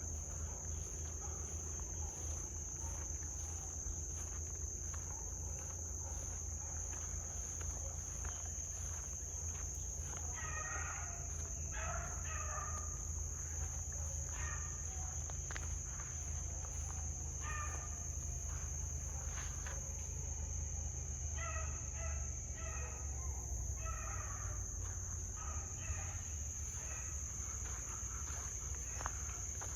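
Beagle pup baying on a rabbit's track: a string of faint short barks that come and go from about ten seconds in until near the end. They sound over a steady high drone of insects.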